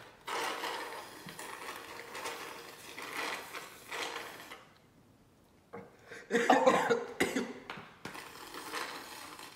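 Slurping through a plastic straw, sucking leftover hot wing sauce from the bottom of a plastic container. About six seconds in, after a short pause, comes a loud cough, and then the slurping starts again.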